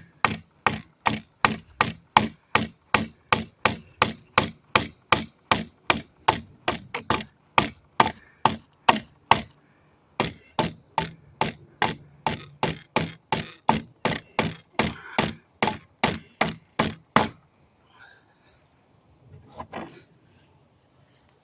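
Hammer striking a pallet plank over and over to knock out its nails, about three blows a second. There is a short break about halfway, and the blows stop near the end, leaving a few faint knocks.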